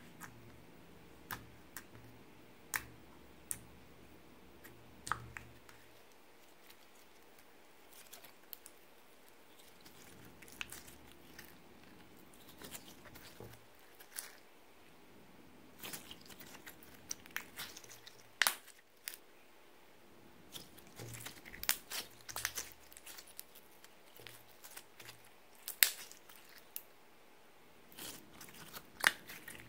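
Clear slime being kneaded and stretched by hand as glitter is worked in: irregular sticky clicks and small pops, sparse at first and coming much thicker from about halfway through.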